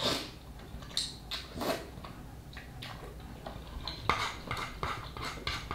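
Eating instant noodle soup up close: a slurp of broth from a wooden spoon at the start, then chewing and small clicks of chopsticks in the pot, with a quick run of short clicks in the second half.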